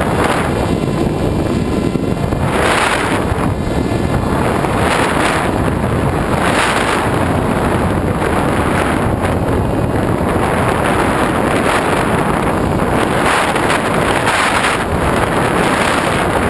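Wind rushing over the microphone of a GoPro carried on a flying RC glider, rising and falling in swells.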